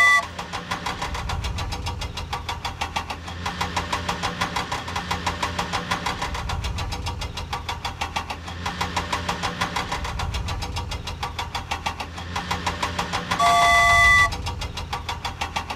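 Vehicle engine running with a rapid, even putter, and a horn honking briefly at the start and again for about a second later on.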